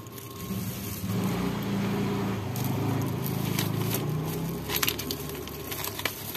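A vehicle engine passing by, a low steady hum that swells about a second in and fades away after about four seconds, with a few sharp clicks of plastic being handled.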